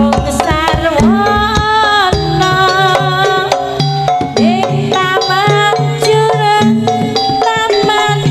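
Live jaranan music, played instrumentally: drums beat a busy rhythm under a melody of held notes that slide up and down in pitch.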